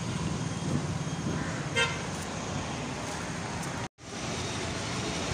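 Outdoor street traffic noise with a single short vehicle horn toot about two seconds in. The sound cuts out for a moment just before four seconds.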